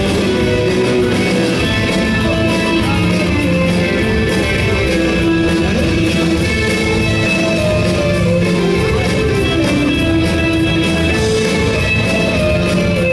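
Live rock band playing loudly: electric guitars over a drum kit, continuous with no break.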